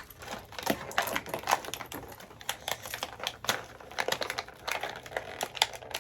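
Irregular light clicks and taps of small plastic toy pieces and packaging being handled.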